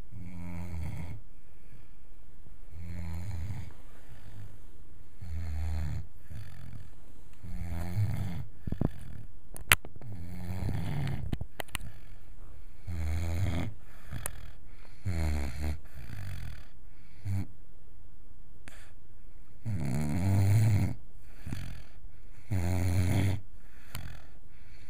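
A five-month-old wire-haired vizsla puppy snoring, low, pitched snores roughly every two and a half seconds, a little louder near the end. A sharp click about ten seconds in, with a couple of fainter ones after it.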